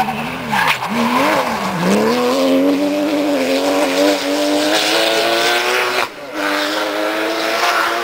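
Rally car engine coming through a corner. Its pitch dips and wavers for the first two seconds, then rises steadily as it accelerates away, drops briefly at a gear change about six seconds in, and rises again.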